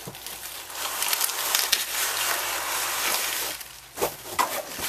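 Shipping packaging and bubble wrap rustling and crinkling as a bubble-wrapped plaque is pulled out of its box, with a short lull about three-quarters of the way in.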